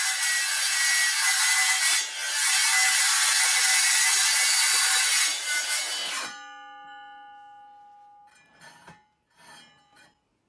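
Makita 18V brushless cordless circular saw running and cutting as it is pushed through a crosscut along a drawer-slide sled. It cuts off suddenly about six seconds in, leaving a fading ringing tone as the blade spins down, then two brief faint rubbing sounds.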